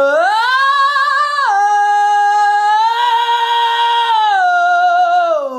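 A man singing one long, high, bright sustained vowel with strong vocal compression. It rises to a high note, drops a step about a second and a half in, lifts a little around three seconds, then glides down and stops.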